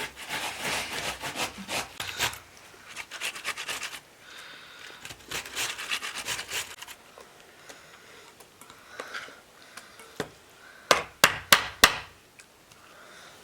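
Quick back-and-forth scraping strokes of hand food-preparation work, in two spells, followed near the end by about five sharp knocks.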